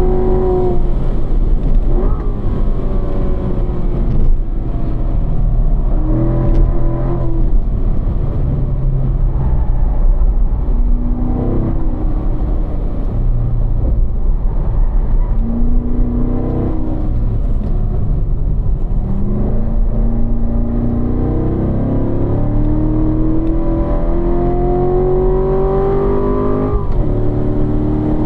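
2015 Corvette C7's 6.2-litre V8 at full effort on a race-track hot lap, heard from inside the cabin. The engine note climbs and drops again and again as the car brakes, downshifts for a slow corner and accelerates hard back up through the gears, over a steady rumble of road and tyre noise.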